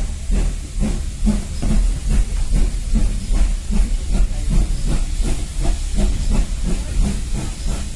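Steam locomotive working, its exhaust chuffing in a steady rhythm of about three beats a second, with hissing steam over a low rumble.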